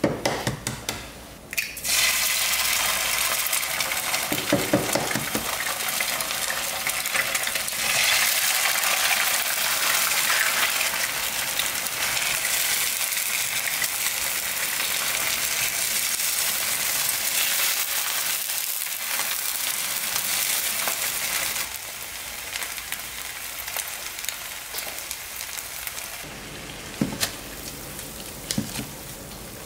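Eggs cracked into a hot oiled nonstick frying pan, then frying with a steady loud sizzle, with a wooden spatula working in the pan. Near the end the sizzle falls away, and blocks of dried instant noodles drop into a pan of boiling water.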